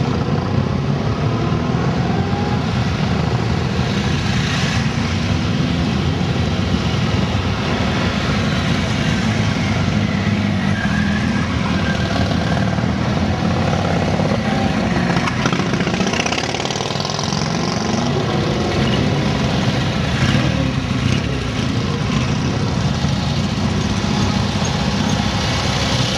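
Classic British motorcycles riding past one after another, each engine note rising and then falling as it goes by, over a steady drone of other bikes running.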